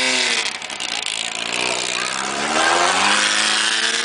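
Racing Volkswagen Beetle's air-cooled flat-four engine: its pitch drops briefly about half a second in, then rises steadily as the car accelerates, over constant road and wind noise.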